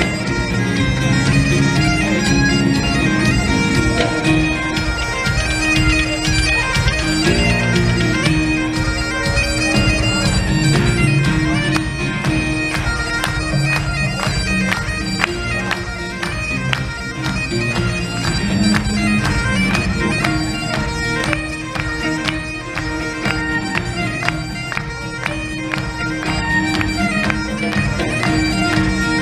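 Highland bagpipes playing a Celtic tune over their steady drone, backed by a live band with acoustic guitar, fiddle, bodhrán and drum kit keeping a steady beat.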